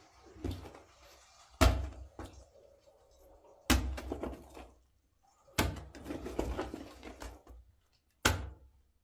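A series of sharp thuds, four main ones about two seconds apart, each followed by a short rattle.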